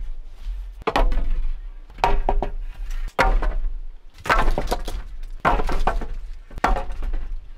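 Hollow bamboo poles set down one after another onto a bamboo-slat platform floor: about six loud wooden knocks, roughly one a second, each ringing briefly.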